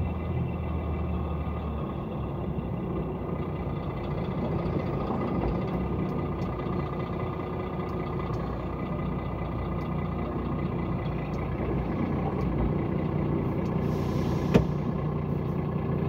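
Heavy truck's diesel engine running steadily, heard from inside the cab as it follows behind a bus. A single sharp click comes near the end, with a brief hiss around it.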